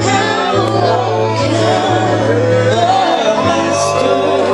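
Gospel song playing, with a steady sustained bass line under gliding melodic lines and singing.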